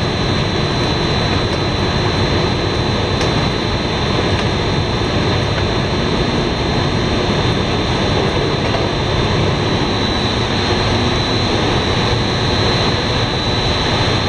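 Machinery of a fried-snack extruder production line running, a loud steady mechanical din with a thin high whine over it.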